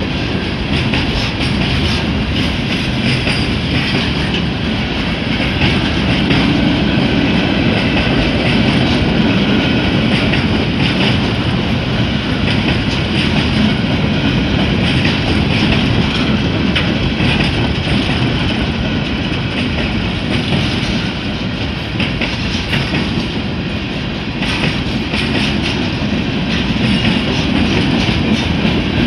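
Freight train boxcars rolling steadily past a grade crossing: a continuous heavy rumble of steel wheels on the rails, with fine clicking of wheels over the rail joints and crossing.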